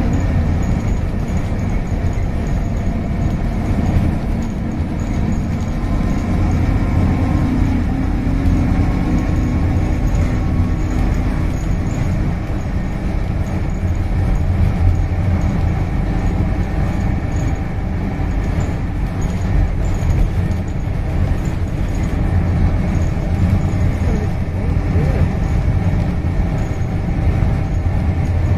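Inside a moving Scania K230UB single-deck bus: the low drone of the diesel engine and road noise fill the cabin. A higher engine note fades out about twelve seconds in.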